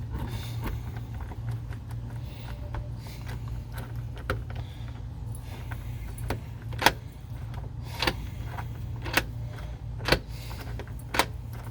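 Freshly cut copy key being inserted and turned in a Kwikset smart lock's override cylinder: a series of sharp metallic clicks and key rattles, the loudest about seven and ten seconds in. The copy operates the lock. A steady low hum runs underneath.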